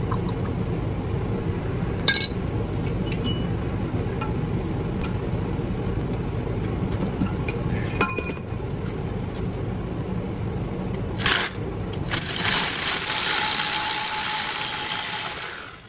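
Steady low rumble of shop fans, with sharp metallic clinks about two and eight seconds in as copper bars are worked out of an electric motor's cage rotor. Near the end a loud hiss with a steady whine runs for a few seconds and cuts off suddenly.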